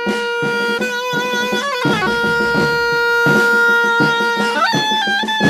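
Oboe playing sustained notes, the longest held for about two and a half seconds, then gliding up to a higher note near the end.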